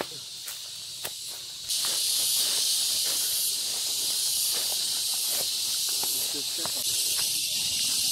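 Footsteps crunching on dry leaves and twigs, then from about two seconds in a loud, steady, high-pitched insect chorus that sets in suddenly and drowns out most else.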